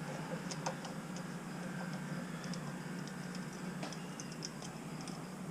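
Scattered faint clicks and light taps from small mini bike parts and hand tools being handled during handlebar work, over a steady low hum.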